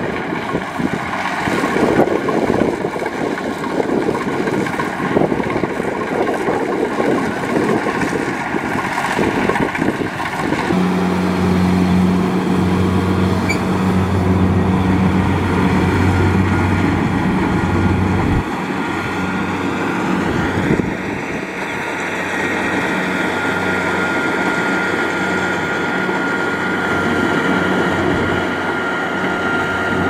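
Kubota DC-70 rice combine harvester running as it cuts and threshes rice, a steady machine drone. About a third of the way in the sound changes abruptly and a steady low engine hum comes to the fore.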